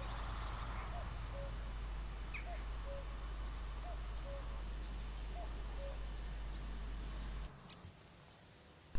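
Woodland ambience: a bird repeating a low two-note call about every second and a half, with faint high chirping over a steady low hum. The background drops away about a second and a half before the end, and there is a sharp click at the very end.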